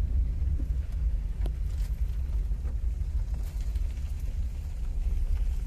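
Car driving along a country road, heard from inside: a steady low rumble of engine and road noise, with a few faint brief knocks.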